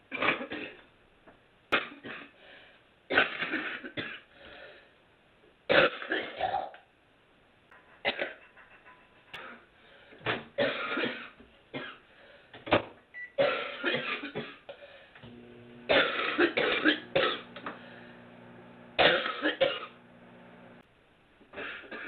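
A woman's smoker's cough: harsh hacking coughs and throat clearing in about a dozen fits, with short pauses between them.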